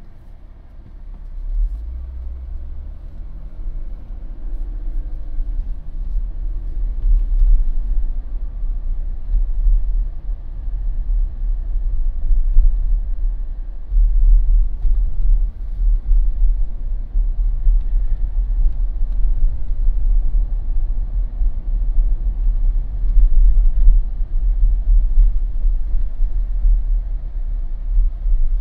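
Jeep driving slowly on a residential street: low engine and road rumble that builds over the first several seconds as it picks up speed, with a rising engine note a couple of seconds in.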